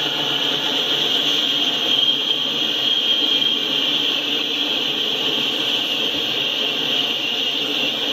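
Autorack freight cars rolling past: a steady rumble of wheels on rail with a steady high-pitched hiss over it.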